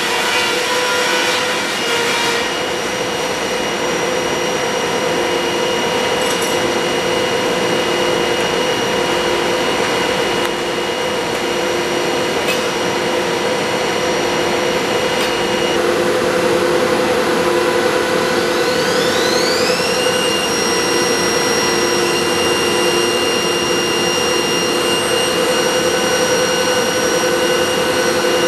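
Large high-speed four-sided planer running, its cutterheads and motors giving a loud, steady hum and whine over a dense noise. About two-thirds of the way through, a second whine rises in pitch and then holds steady.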